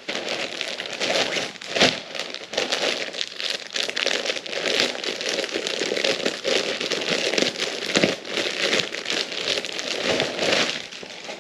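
Packaging being handled and opened, crinkling and crackling without a break and stopping near the end.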